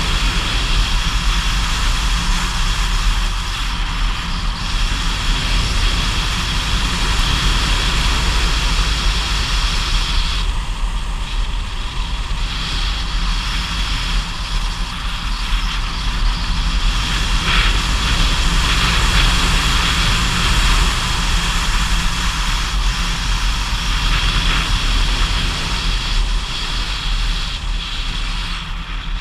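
A motor vehicle's engine running steadily under load while climbing a mountain road, mixed with steady wind rushing over the camera's microphone.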